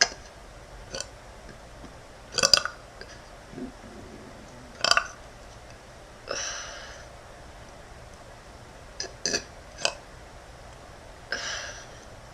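A woman burping several times in short separate belches, the loudest about two and a half and five seconds in, with two longer breathy exhales after about six and eleven seconds.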